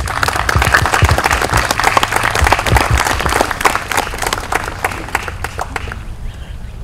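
Audience applauding, a dense patter of many hands clapping that dies away about six seconds in.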